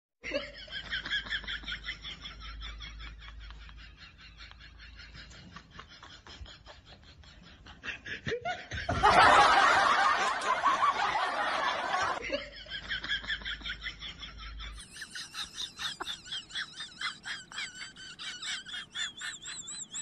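Laughter, high and wavering, with a loud burst of noise lasting about three seconds near the middle.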